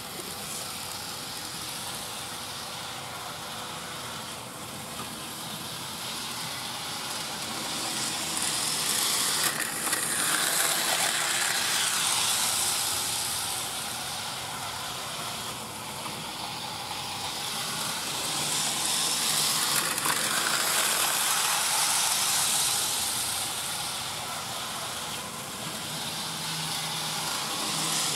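Hornby model Class 47 diesel locomotive running on sectional track pulling coaches: a steady electric-motor whirr and wheel rumble with a hissy edge. It swells louder twice and eases off between.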